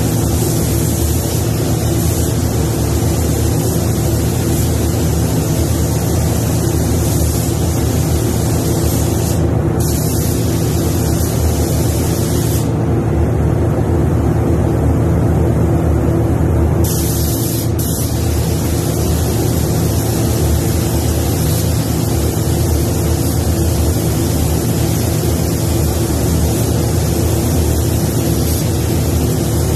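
Paint spray gun hissing as clear coat is laid on. The hiss stops briefly about ten seconds in and again for about four seconds in the middle, then resumes. A steady low hum runs underneath throughout.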